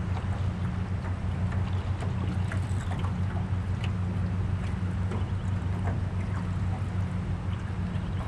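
Steady low hum of a small boat motor, with water splashing and lapping against the hull in small ticks.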